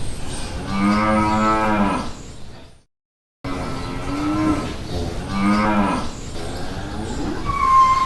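Cattle mooing: a series of long, drawn-out moos, one after another, broken by a brief dead silence about three seconds in. A short high steady tone comes near the end.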